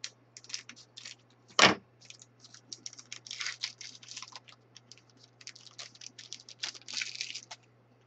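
A trading-card pack being snipped open with scissors, then its wrapper crinkling and crackling in the hands in quick rustles as the cards are pulled out. A single sharp click about a second and a half in is the loudest sound.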